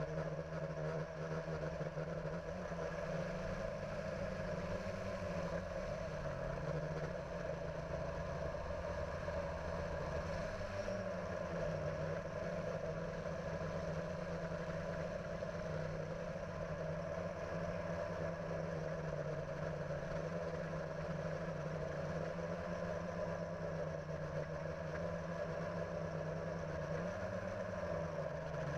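Camera drone's motors and propellers heard from on board: a steady hum and buzz whose pitch wavers slightly as the aircraft manoeuvres.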